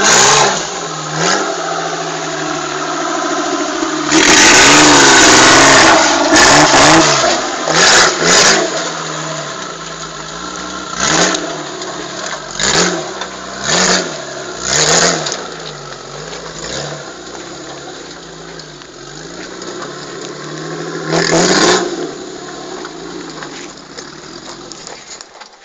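Engine of a small lifted off-road 4x4 revving in repeated bursts as it crawls over rocks: a long hard rev about four seconds in, then a string of short blips roughly a second apart, and another rev a few seconds before the end. The sound grows fainter near the end as the vehicle moves away.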